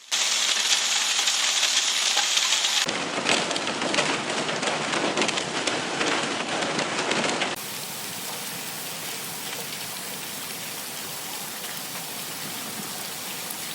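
A heavy downpour pelting surfaces, a dense patter of many small impacts. It cuts abruptly to a different stretch about three seconds in, and again about seven and a half seconds in, where it becomes quieter.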